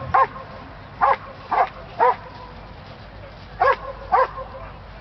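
Belgian Malinois barking: six loud barks of the same pitch, the first four about half a second to a second apart, then a pause of about a second and a half before two more.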